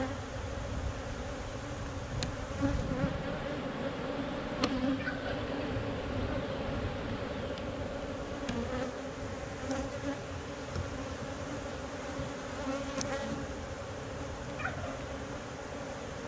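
Honeybees buzzing in a steady drone from an open hive as its frames are lifted out, with a few light clicks from the wooden frames being handled.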